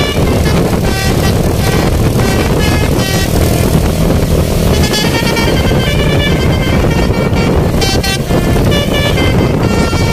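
Telolet basuri horn on a Tunggal Jaya bus, a set of air-horn trumpets, playing a long melodic run of short, quick notes that change pitch several times a second, with a short break near the middle. A loud low rumble runs underneath.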